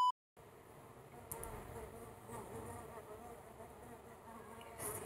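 The tail of a steady, high censor bleep cuts off right at the start, followed by a moment of dead silence. Then a faint, wavering buzzing hum over low room rumble.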